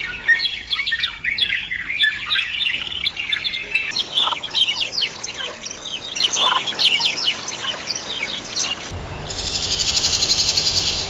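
Songbirds chirping and twittering in quick, overlapping high calls. About nine seconds in, this gives way to a fast, buzzy, high-pitched trill.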